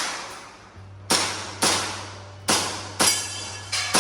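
Airsoft pistol firing at targets in quick, uneven succession: about six sharp cracks, each with an echoing tail, with a faint metallic ring near the end.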